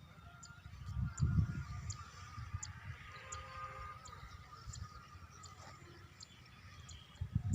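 Faint open-air ambience with distant bird calls, a small sharp tick repeating about one and a half times a second, and low wind rumble on the microphone, strongest about a second in and again near the end.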